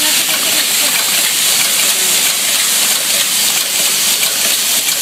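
Vibratory bowl feeders rattling heaps of small metal zipper slider parts on zipper-slider assembly machines: a dense, steady, high metallic clatter that sounds almost like hiss.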